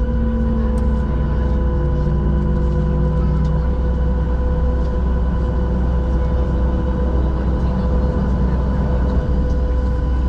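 Boeing 737-700 cabin noise at low power after landing: a steady low rumble with a constant high whine over it.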